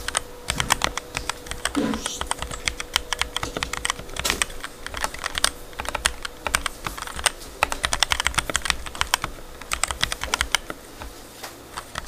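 Modded Rakk Lam Ang Lite mechanical keyboard being typed on quickly: a dense, continuous run of key clacks that thins out and gets quieter near the end.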